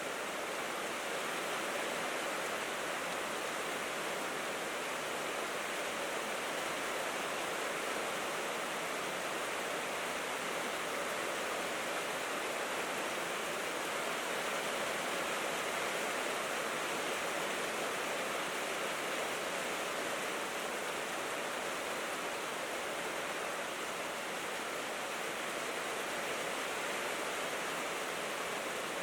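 Steady rain falling on a tin roof, an even, unbroken hiss with no separate drops standing out.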